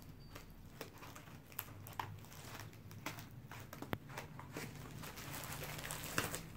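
Scissors cutting through a cardboard box and its packing tape: scattered snips and rustles, with one sharp click about four seconds in.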